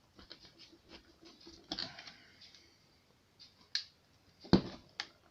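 A plastic fuel pump strainer being pressed onto an in-tank fuel pump by hand: a run of small plastic clicks and knocks, with a sharper click about four and a half seconds in.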